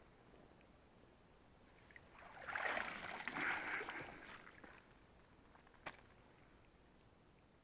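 Water splashing and streaming off a wire-mesh keepnet full of small fish as it is pulled up out of the river, swelling for about two seconds and then dying away. A single short click follows a second or so later.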